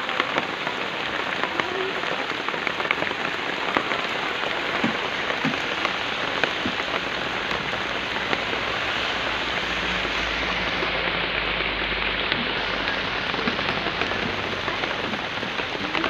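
Steady rain falling, a dense, even patter of drops that holds throughout.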